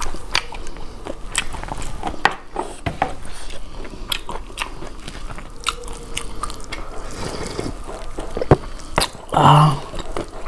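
Close-miked eating: biting and chewing with many short wet mouth clicks and smacks and some crunching, as food is eaten by hand. A brief louder voiced sound, like a hum, comes near the end.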